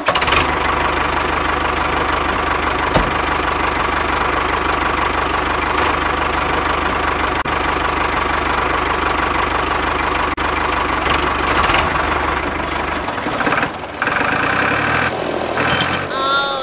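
Tractor engine running steadily; its low rumble drops away about thirteen seconds in.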